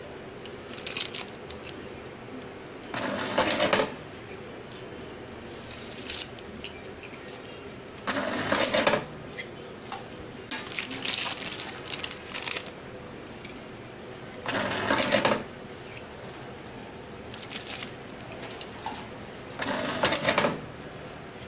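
Automatic transformer taping machine running through four short tape-wrapping cycles, each a burst of machine noise about a second long, every five to six seconds. Between the cycles come light clicks and taps as the transformer cores are loaded and set down.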